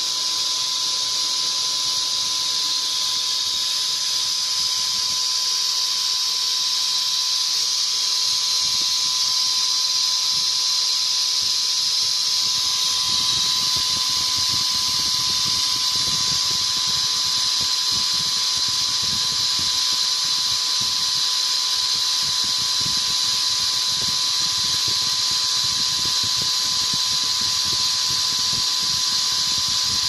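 Electric HVLP paint sprayer running continuously: the turbine's steady high whine and the hiss of air and spray from the gun. It is spraying warm water into a stainless steel sink until the tank runs empty.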